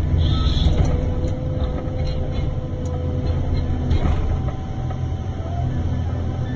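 Komatsu 931XC forestry harvester's diesel engine and hydraulics running as the C144 harvester head is swung between trees: a steady low drone, with a faint whine that steps up in pitch about four seconds in.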